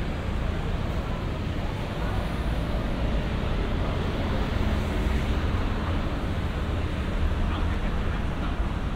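City street traffic: a steady low rumble of cars driving through an intersection, with no single sharp event standing out.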